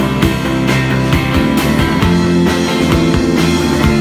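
Live rock band playing loud: electric guitar over a drum kit, with a steady beat of drum hits.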